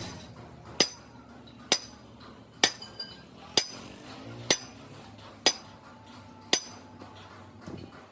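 A hand hammer striking metal seven times in an even rhythm, about one blow a second, each blow a sharp clink with a brief high ring, as work is done on hydraulic breaker parts.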